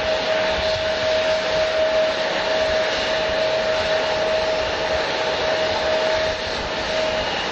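Jet airliner engines running steadily: a held whine over an even hiss.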